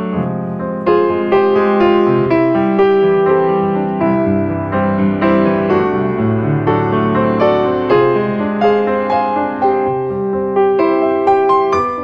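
Background instrumental music: a melody of struck notes, a new one about every half second, over held chords.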